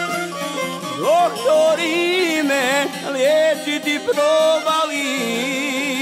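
Instrumental break of Bosnian folk music: a fiddle carries the melody with vibrato and slides, over a steady plucked-string accompaniment.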